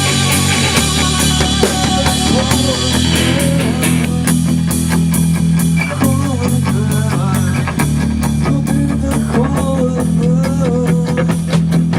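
Rock band playing a song in rehearsal: the drum kit keeps a steady beat of bass drum and snare under a thick bass line. From about the middle a bending, wavering lead melody runs over it.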